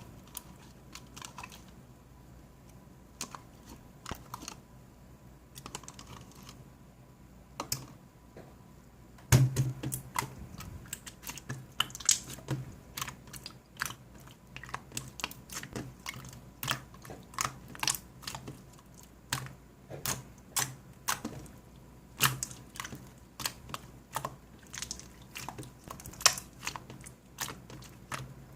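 Slime being pressed and worked by hand, giving small sticky clicks and pops. They come only now and then at first, then turn steady and much louder from about nine seconds in.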